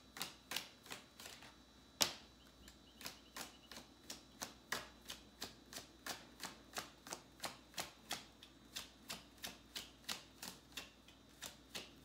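Tarot deck being overhand-shuffled, the cards clicking against each other in quick, even strokes about three a second. One sharper snap about two seconds in.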